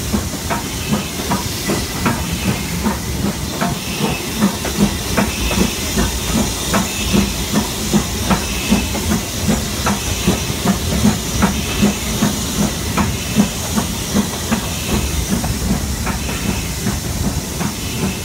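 Steam locomotive 80078, a BR Standard Class 4 2-6-4T tank engine, working steadily under way: exhaust beats at about two a second over a constant steam hiss and the train's running noise.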